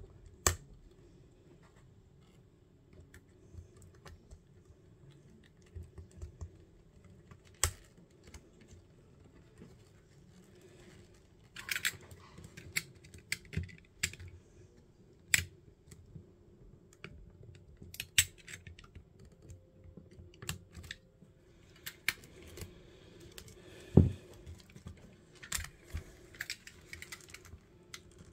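Irregular clicks, taps and light knocks from fingers, pliers and a soldering iron working on a boombox's plastic cassette deck mechanism and its wiring, with a few louder knocks, the loudest near the end.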